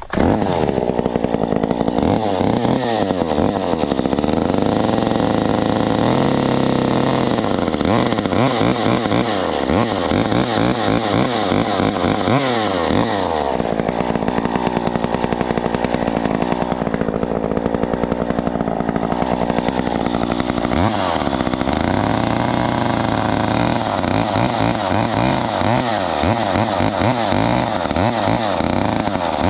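Small two-stroke top-handle chainsaw, a Stihl MS 194 T, running under load as it makes the back cut into a small cherry tree being felled. Its revs rise and fall, sagging twice as the chain bites and then climbing again.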